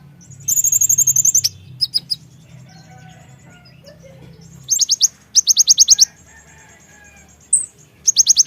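Konin (kolibri ninja) sunbird song: several bursts of rapid trills of very high, sharp notes, about ten a second, with short pauses between them.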